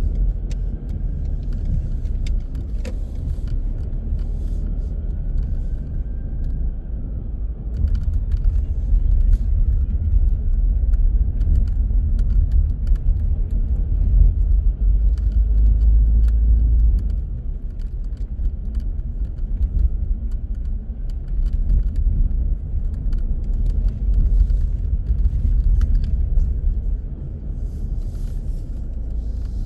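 A car driving on city streets: steady low road and engine rumble, louder for several seconds in the middle, with a faint whine that rises and falls a few times and occasional light clicks.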